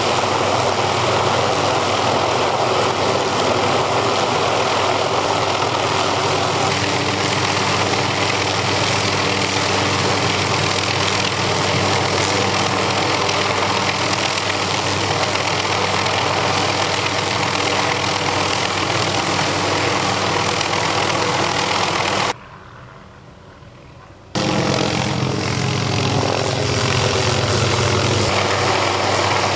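Light helicopter flying low and slow, its rotor and turbine engine running steadily and loudly. Near the end the sound cuts out for about two seconds, then returns with its pitch sliding down as the helicopter passes close overhead.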